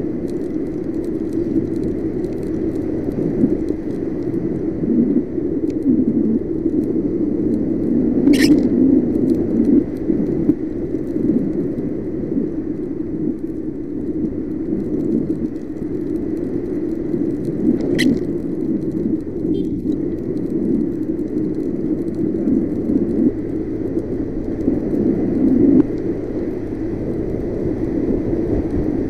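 Yamaha NMAX scooter at cruising speed on a wet road: a steady low rumble of wind and road noise, with the scooter's engine under it. Two sharp clicks come about 8 and 18 seconds in.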